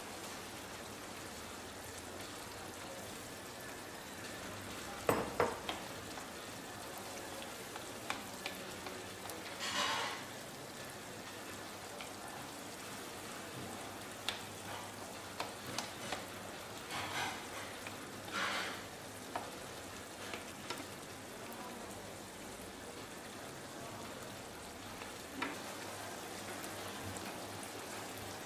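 Red curry and coconut sauce simmering in a frying pan with a steady hiss, while a spoon stirs through the chicken and fruit, giving a few short scrapes and clicks now and then.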